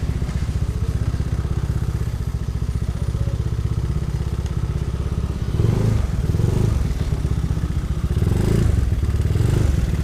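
Motorcycle engine running at low revs with a steady low rumble, louder for a moment about six seconds in and again near the end.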